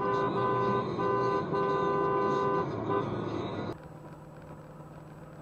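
Car horn blaring in several long blasts of about a second each, with short breaks, then cut off abruptly. After that, steady highway road noise from a car driving.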